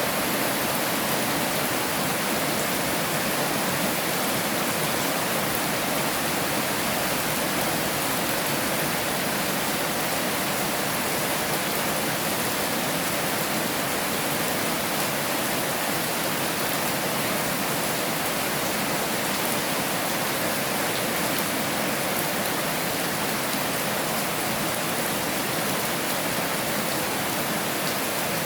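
Heavy rain falling steadily: a dense, even hiss with no breaks or changes.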